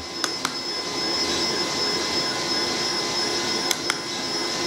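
Steady whine of a battery-powered EL wire inverter: several high, even tones over a hiss, showing the wire is switched on and lit. A few light clicks of plastic model parts being handled.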